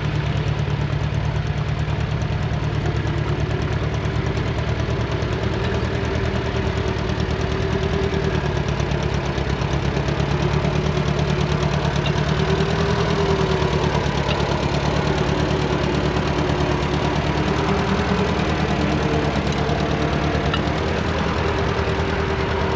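Tractor engine running steadily, its pitch wavering slightly up and down.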